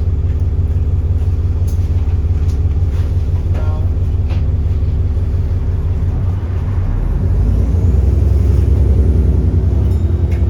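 Alexander Dennis Enviro400 double-decker bus's diesel engine running steadily, then pulling harder and louder from about six seconds in as the bus accelerates, with a faint rising turbo whistle. A few light knocks and rattles.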